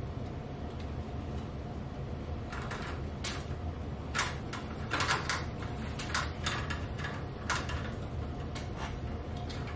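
Electrical wires being handled and pulled at an open metal fluorescent light fixture: a string of irregular scrapes and clicks, most of them between about two and a half and nine and a half seconds in, over a steady low hum.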